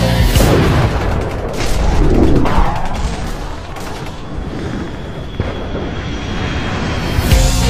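Cinematic slow-motion sniper rifle shot sound effects: deep booms and whooshing sweeps over a low rumble, then a faint high ringing tone. The heavy-metal guitar music cuts back in near the end.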